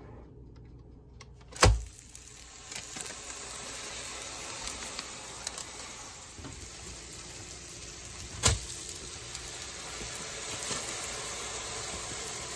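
Ground turkey patties sizzling on an electric griddle, a steady hiss that sets in after a sharp knock about two seconds in. A second sharp knock comes about eight seconds in.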